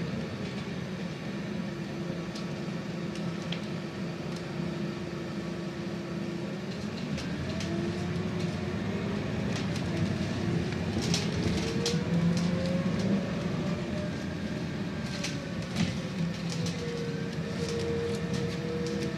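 Scania Citywide 12 LF CNG city bus heard from inside the passenger cabin while driving: a drivetrain whine falls in pitch and holds steady, then rises over several seconds and settles a little lower near the end as the bus changes speed. Short clicks and rattles from the cabin fittings come through, most often in the second half.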